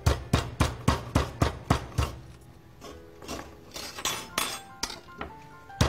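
Meat mallet pounding a chicken breast between plastic sheets on a cutting board: rapid, even blows about four a second. After about two seconds they pause, with only a few lighter knocks, and the rapid pounding starts again at the very end.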